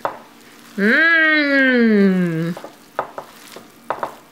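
Hands tossing and squeezing oiled spaghetti squash strands in a ceramic dish, with soft wet squishing and short clicks. About a second in, a voice holds one long wordless note for nearly two seconds, rising briefly and then sliding slowly down.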